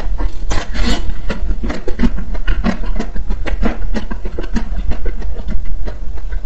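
Close-miked chewing of a frozen ice cream bar with a coated shell: irregular crunching and mouth sounds several times a second, over a steady low hum.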